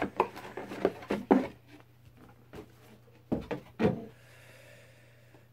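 Cardboard box and paper card being handled: a series of short rustles and taps, clustered in the first second and a half and again around three and a half to four seconds in, then quieter.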